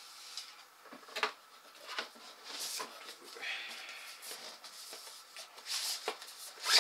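Cardboard packaging being handled: scattered light knocks and cardboard rubbing and scraping as a white accessory box is lifted out of a shipping box. The rustle is louder near the end.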